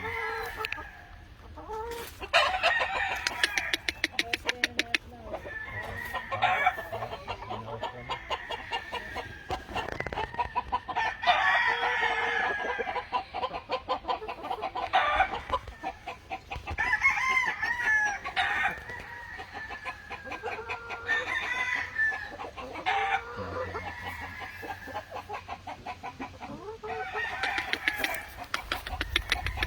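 Gamefowl roosters crowing over and over, with chickens clucking in between.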